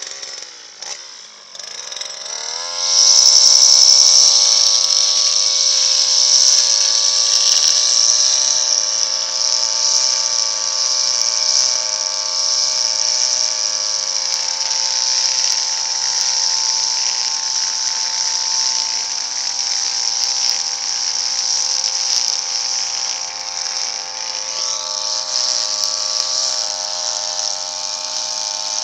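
Backpack brush cutter's small engine revving up about two seconds in, then running steadily at high speed while cutting grass.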